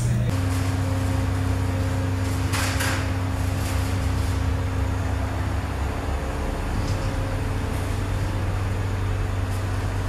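Steady low machine hum, with a brief rustle about two and a half seconds in.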